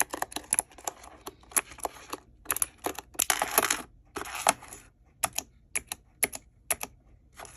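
Keys of a keyboard fidget toy being pressed, clicking many times at an uneven pace, with a few short flurries of rapid clicks, like typing on a mechanical keyboard.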